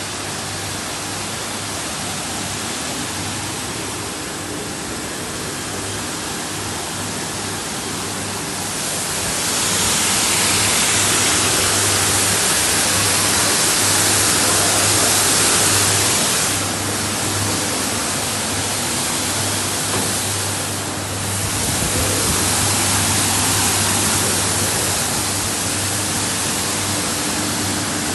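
Industrial carpet washing machine running, with a steady electric motor hum under a rushing, water-like hiss. The hiss grows louder about a third of the way in and dips briefly twice later on.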